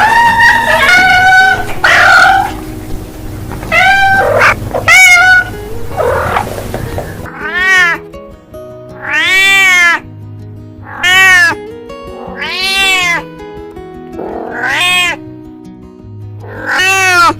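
Domestic cats meowing repeatedly over background music. In the first half the meows come in quick succession; about halfway through a different recording begins, with drawn-out meows that rise and then fall in pitch, roughly every two seconds.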